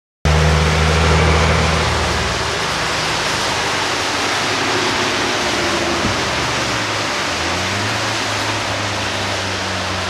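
Semi truck's diesel engine running as the rig drives past on a wet road, over a steady hiss of tyres on wet pavement. The sound cuts in abruptly just after the start. The engine's low drone is strongest in the first couple of seconds, and a low engine note rises about three-quarters of the way through.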